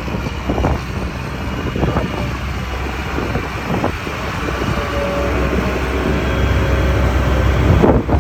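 Heavy cabover dump truck's diesel engine running with a steady low rumble, growing louder toward the end.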